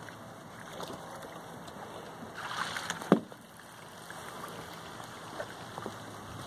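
Water sloshing and splashing as puppies wade in a plastic kiddie pool, over a steady watery hiss, with scattered small ticks. A louder rush of splashing comes about two and a half seconds in, ending in one sharp knock.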